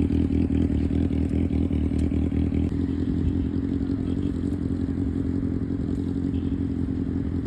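Sport motorcycle engine running steadily with a fast, even pulse, getting gradually a little quieter.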